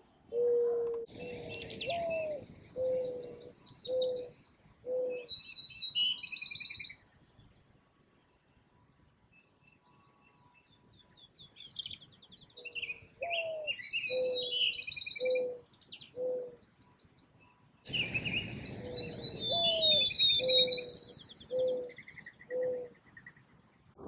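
A male mourning dove singing its low mate-attraction song, 'coo-ah, coo-coo-coo', three times with pauses between. In each song the second note rises and falls, and three short even coos follow it. Smaller songbirds chirp and trill much higher over it.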